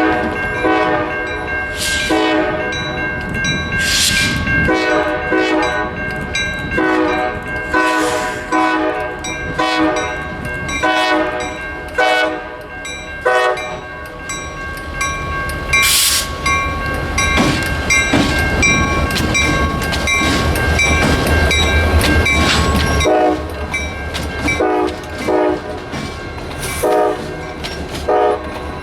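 A CSX freight locomotive's Nathan K5LA five-chime air horn sounding a long run of short and longer blasts, a playful horn show. In the middle the blasts pause while the low rumble of the passing diesel locomotives builds to its loudest, then the short blasts start again.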